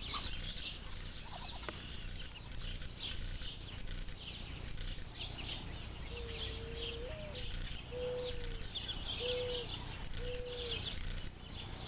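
Muscovy ducklings peeping: many short, high peeps overlapping throughout. In the second half come four lower, longer calls.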